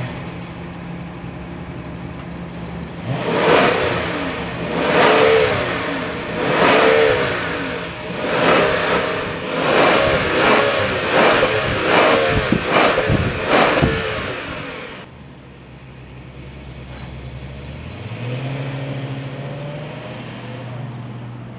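2018 Rolls-Royce Ghost's twin-turbo V12 exhaust idling, then blipped through a series of about eight quick revs, each rising and falling in pitch. It drops back to a quieter idle, then rises again near the end as the car pulls away slowly.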